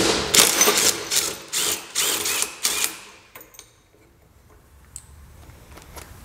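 Cordless driver with a 14 mm socket running in a series of short bursts for about three seconds, backing out the bolt that holds the lawn tractor's steering wheel on its shaft. Then a few faint clicks.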